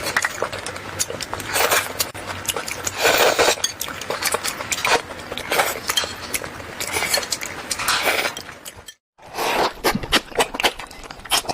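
Close-miked eating of fish: wet, sticky chewing and mouth sounds mixed with many short clinks of cutlery against a dish. The sound cuts out completely for a moment about nine seconds in.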